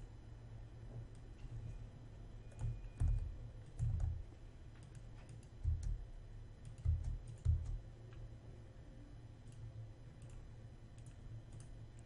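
Computer keyboard typing and mouse clicks, a scatter of light clicks with a handful of louder dull thumps from about three to seven and a half seconds in.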